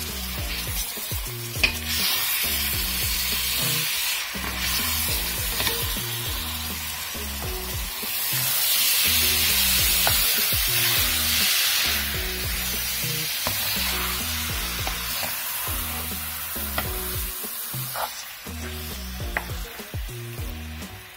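Chopped green beans sizzling in hot oil in a pot as they are stirred with a wooden spoon, the sizzle loudest about halfway through, with a few sharp taps of the spoon against the pot. Music plays underneath.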